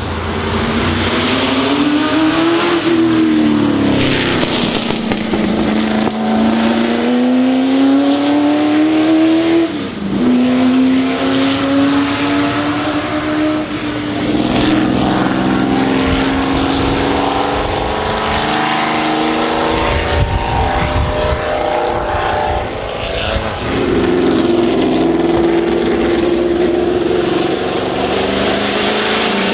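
Historic sports racing car's engine at full throttle, its note climbing through the revs and dropping back at each gear change or lift several times, with a sharp drop about ten seconds in.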